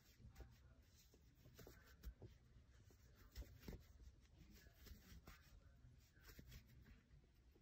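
Faint rustling and rubbing of pre-looped chenille yarn being pulled through its loops by hand, with a few soft irregular clicks.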